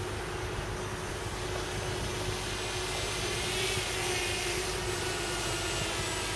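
Walkera Runner 250 racing quadcopter's motors and propellers whining in flight, the whine swelling and wavering in pitch as the drone passes close about four seconds in.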